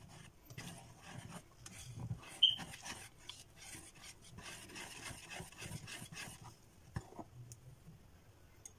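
A small hand whisk stirring a thick cream-cheese mixture in a plastic bowl: soft, irregular scraping strokes against the bowl, with one sharper click about two and a half seconds in.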